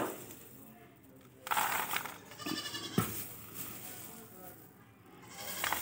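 A goat bleats once, briefly, about two and a half seconds in, with fainter animal calls before it. Sharp knocks of the plastic feed tubs being handled at the start and about three seconds in.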